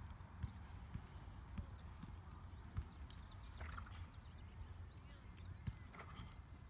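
Wind buffeting the microphone: a low rumble broken by irregular thumps, with a few faint clicks.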